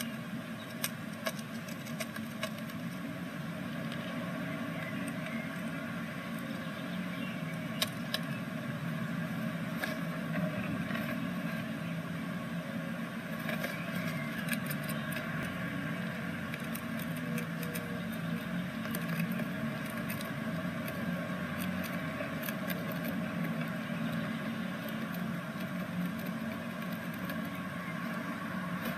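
Steady low hum with a fainter higher drone throughout, under scattered light clicks and scratches from great tits moving about inside a nest box, most of them in the first half.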